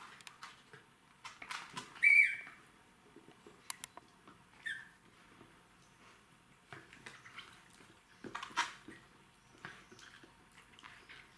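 Two Jack Russell terrier puppies playing tug-of-war over a rubber chicken toy: scuffling and light clicks, with a short high squeak about two seconds in and another near five seconds.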